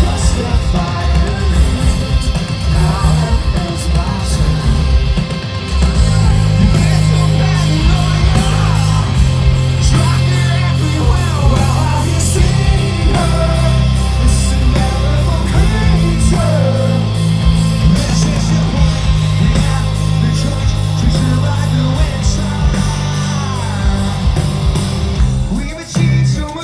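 Loud live rock music through a festival PA, heard from within the crowd: distorted electric guitar, heavy bass and drums, with sung vocals. The sound drops briefly near the end.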